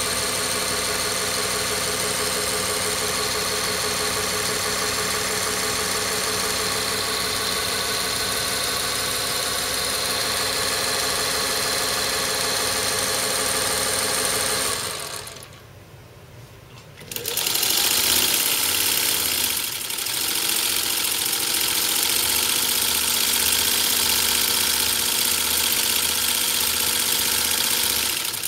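Vintage Singer sewing machines with direct-drive potted motors and gear drive (a 201-2 and a 15-91) running at speed with no fabric, one after the other. The first runs steady and smooth and stops about fifteen seconds in. After a short lull the second starts up, a little louder and with a faint even low pulse.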